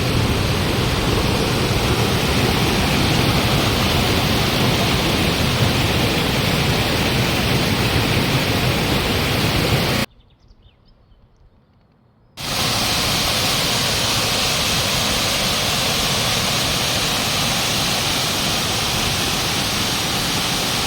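Mountain waterfall cascades rushing, a loud steady roar of falling water. About halfway through it drops away almost to nothing for a couple of seconds, then comes back at full strength.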